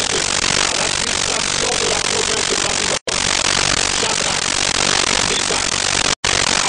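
Loud, even hiss of noise that cuts out for an instant twice, about three seconds apart, with faint short tones barely showing beneath it.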